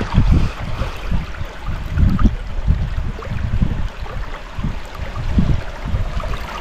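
Running water with irregular low thumps and rumbles.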